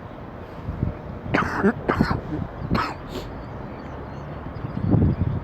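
A man coughing: a run of several sharp coughs between about one and three seconds in, and another lower one near the end.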